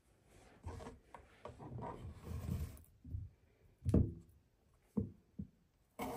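Small red potatoes being handled and rolled on a plastic chopping board, then a few separate knocks as a kitchen knife cuts through a potato onto the board, the last one loudest near the end.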